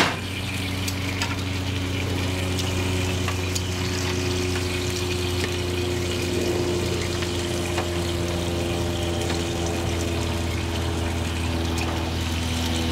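A steady low electric-motor hum holding several fixed pitches, with faint scattered crackles over it.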